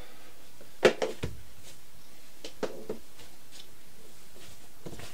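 Hands kneading and pressing a ball of bait dough on a worktop: one sharp knock about a second in, a couple of smaller knocks right after, then a few faint taps.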